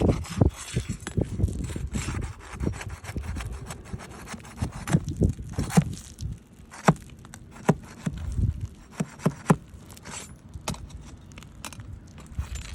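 Roofing nails being worked out from under roof shingles: scraping and rubbing with many sharp clicks and knocks.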